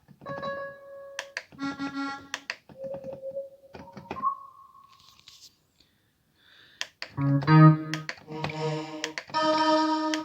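Korg N264 keyboard playing short chords and single notes while stepping through combi sounds, with a pause about halfway before fuller sustained chords come in near the end.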